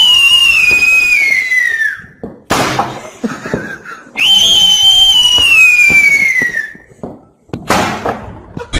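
Two long whistles that fall slowly in pitch, each ending in a loud bang; the second whistle and bang repeat the first.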